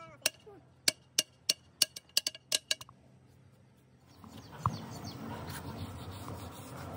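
About ten sharp taps in quick, uneven succession, some with a brief ring, then a short lull. From about four seconds in a steady background din sets in, with a single knock just after it starts.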